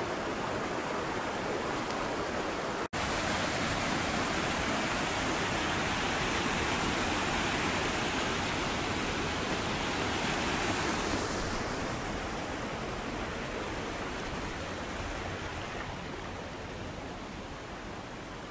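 Rushing water of a rocky forest stream, a steady wash of rapids over boulders. It cuts out for an instant about three seconds in, is loudest through the middle, and grows gradually quieter over the last few seconds.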